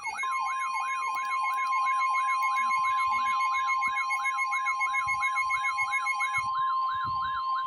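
Emergency weather alert going off: an electronic siren warbling up and down about two and a half times a second over the steady 1050 Hz NOAA Weather Radio warning tone, sounding for a severe thunderstorm warning. The warble stops near the end, leaving the steady tone alone.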